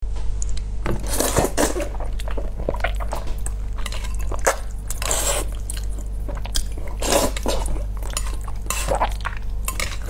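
Slurping up mouthfuls of noodles in sauce, in several long slurps a few seconds apart, with chewing and metal chopsticks clicking against the bowl in between, over a steady low hum.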